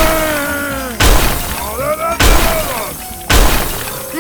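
A string of four loud crashing, shattering impacts about a second apart, with gliding, wavering tones sounding between them.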